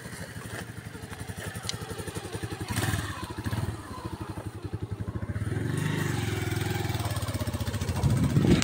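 Small motorcycle engine running with an even, rapid putter, heard from the rider's seat; from about six seconds in it gets louder and steadier as the bike rides on.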